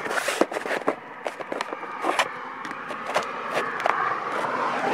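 Scraping and sharp irregular clicks as a sheet of roofing is handled and pushed into place by hand. The scraping grows steadier in the second half.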